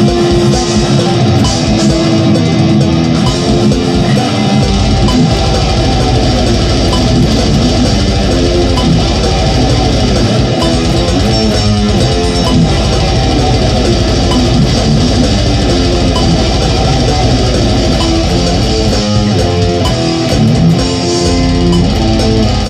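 Heavy metal electric guitar riffing, distorted and fast-picked, loud and continuous, with a dense, fast low pulse underneath through most of the passage. It stops abruptly at the end.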